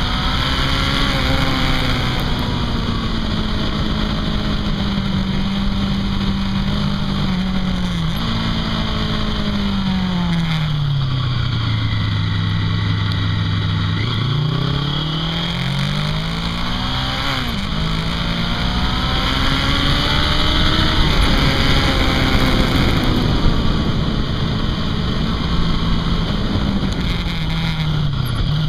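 Honda CB500 parallel-twin engine heard from the rider's seat over steady wind rush, riding through mountain bends. About a third in the note jumps with a shift and then falls on engine braking into a bend, stays low, then climbs as the bike accelerates out. It drops again at an upshift and runs fairly steadily to the end.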